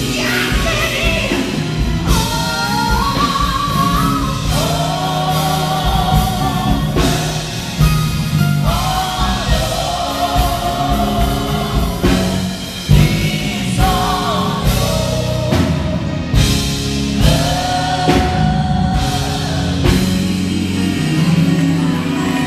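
Live gospel singing by a group of women on microphones, backed by a band with electric bass and drums: long held sung notes that bend in pitch, over a steady drum beat.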